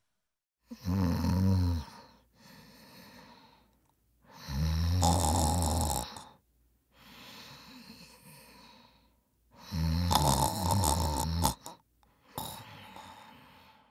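A person snoring: three loud snores about four and a half seconds apart, with quieter breaths out between them.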